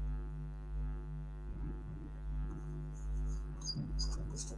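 Steady low electrical hum and buzz, with a few faint clicks near the end.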